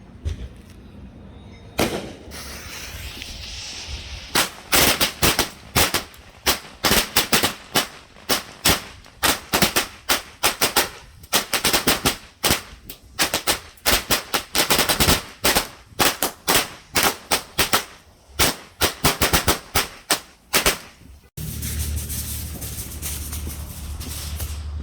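A 100-shot firework goes off: a couple of seconds of hiss, then a long, rapid, uneven string of sharp bangs, several a second, lasting about sixteen seconds. Near the end the bangs stop and give way to a steady low rumble.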